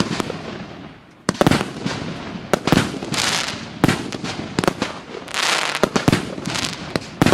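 A 100-shot, 1.2-inch firework cake firing a volley: sharp launch bangs every second or so, each followed by a long hiss of bursting effects overhead. There is a short lull about a second in before the shots resume.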